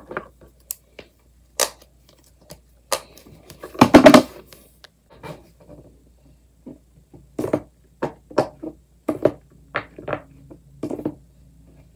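Silicone pop-it fidget toys being handled and set down on a paper mat on a wooden floor: a string of short taps and clicks, with a louder cluster about four seconds in and a quicker run of taps later on.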